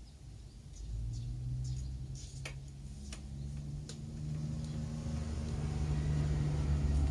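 Honda Zoomer scooter's small four-stroke single-cylinder engine running at idle, freshly refilled with oil. It comes in about a second in with a steady low hum that grows gradually louder, with a few light clicks over it.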